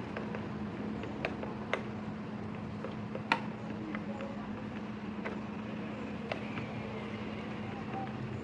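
Steady background rumble of road traffic with a constant low hum, broken by a few sharp clicks and taps, the loudest about three seconds in.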